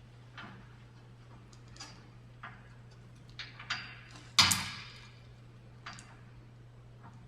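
Steel roller chain and master link being handled and fitted by hand: a string of irregular metallic clicks and clinks, the loudest a sharp ringing clink about four and a half seconds in, over a steady low hum.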